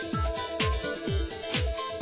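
Electronic background music with a steady kick-drum beat, about two beats a second, and cymbal strokes over held synth notes.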